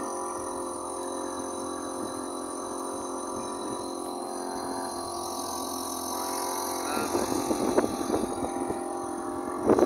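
A small canal cruiser's Chinese-made engine running steadily at low speed, a constant even drone. Irregular rustling noise joins about seven seconds in.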